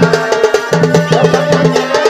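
Folk dance music for a sokhi nach: rapid, dense drum strokes over a sustained melody line.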